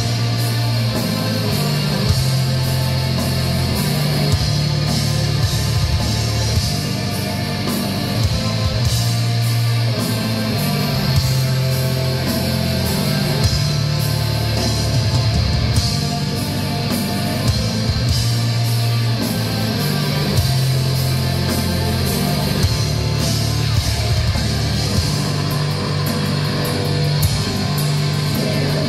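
Live black metal band playing loudly without a break: distorted electric guitars over shifting bass notes and dense drumming, heard from within the crowd.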